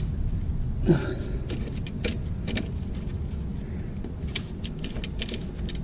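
Scattered light metallic clinks and taps of hand tools being handled and fitted at a car's brake caliper, over a steady low background rumble.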